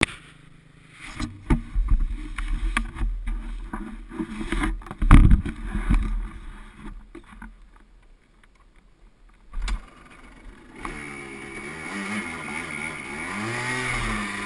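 Knocks, thumps and rattles of a helmet-mounted action camera being handled for about ten seconds. Then, about eleven seconds in, a Yamaha Blaster's single-cylinder two-stroke engine starts up and runs, its pitch rising and falling as the throttle is blipped.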